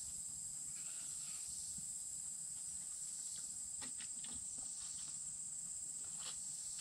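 Steady high-pitched chirring of insects in the grass, with a few faint clicks about four seconds in and again near the end.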